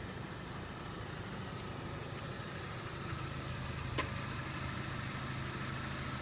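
Chevrolet Sonic LTZ Turbo's four-cylinder engine idling steadily, with a single sharp click about four seconds in.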